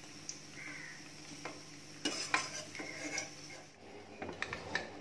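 Steel ladle clinking and scraping against a steel kadai as shallow-fried bread slices are lifted out of the oil, over a faint sizzle. The sharpest clinks come in a cluster about two to three seconds in, with a few lighter knocks near the end.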